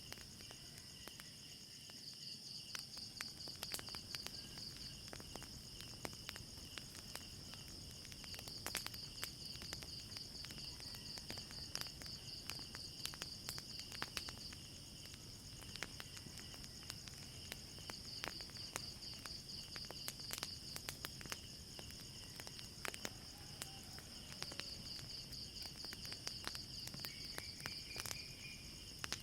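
Crickets trilling steadily at night, the high trill swelling in long stretches, with sharp crackles and pops of a wood fire scattered throughout.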